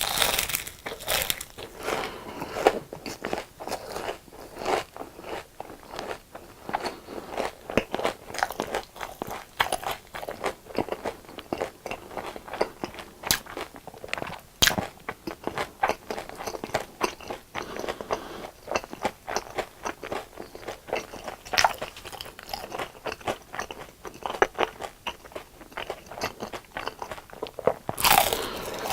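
Close-miked biting and chewing of crunchy deep-fried food (pork cutlet, fries, fried shrimp), with a steady run of crisp crackling crunches and louder bites at the start and near the end.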